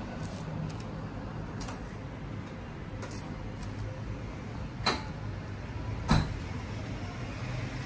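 Light clatter of small condiment cups and metal spoons being handled on a serving counter, with two sharp knocks about five and six seconds in, over a steady low rumble.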